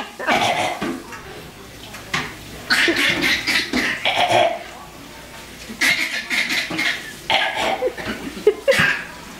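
Playful fake coughs traded back and forth between a baby and an adult, in about four short bouts with pauses between, mixed with some laughter.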